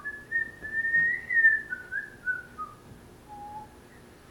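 Whistling: a long wavering whistled tone that steps down in pitch over about three seconds, followed by a short, softer, lower note near the end.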